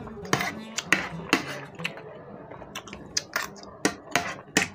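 Metal spoon clinking and scraping against a plate of noodles while eating, a series of sharp irregular clicks.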